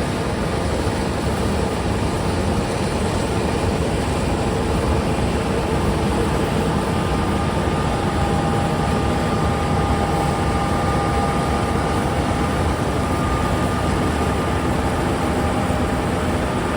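Tractor engine running steadily under way, with a faint steady whine over the engine noise.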